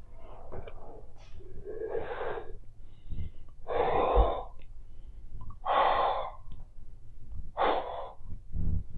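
Close-miked breathy puffs and gasps of a woman blowing bubbles with Big League Chew bubble gum, four loud breaths about two seconds apart, with softer chewing and mouth noises between them.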